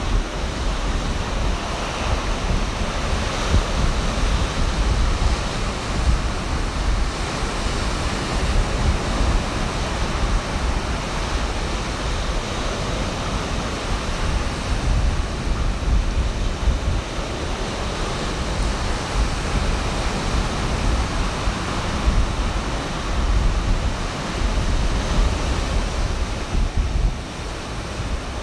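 Ocean surf rolling in and breaking on the beach, a steady wash of waves, with wind buffeting the microphone as a low rumble.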